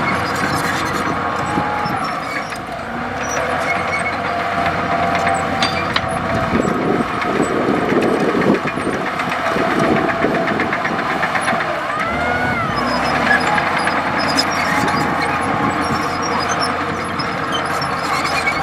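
Komatsu D65E bulldozer's diesel engine running steadily while it works. In the middle it turns rougher, with a stretch of noisy clatter. About twelve seconds in there is a brief whine that rises and then falls.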